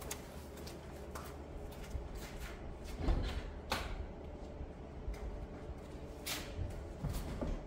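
A few faint, scattered knocks and clicks over a low steady hum.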